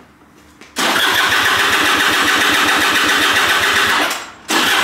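Piaggio SKR 125 scooter's electric starter cranking the engine, which turns over steadily without firing. Cranking begins about a second in, stops briefly near the end and starts again. Retightening a loose spark plug has not cured the no-start.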